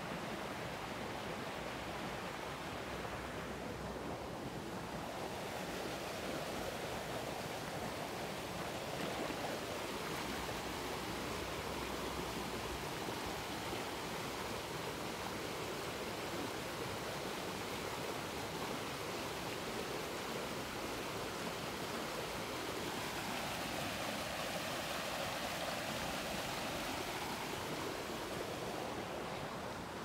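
Shallow creek water flowing steadily over a sandy, stony bed, an even rush of running water.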